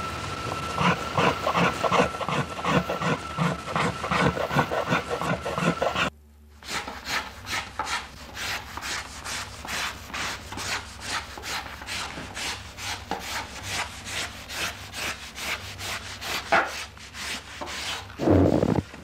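Hand tool shaving and scraping the wood of a viola da gamba in a steady rhythm of strokes, about two a second, over a steady high tone. After a brief break the strokes come faster, about three a second. A louder thud comes near the end.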